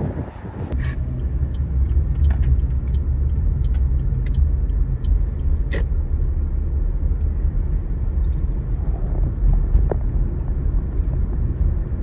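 Car engine and tyre rumble heard from inside the cabin, a steady low drone that comes up about a second in as the car gets moving and carries on, with a few light clicks.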